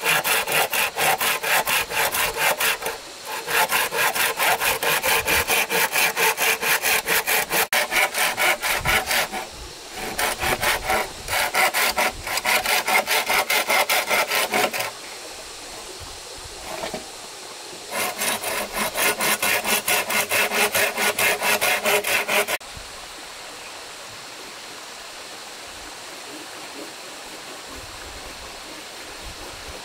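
Hand saw cutting through wood in fast, even back-and-forth strokes, with short breaks and a longer pause partway through. The sawing stops a little over 20 seconds in, leaving only a steady rush of running water.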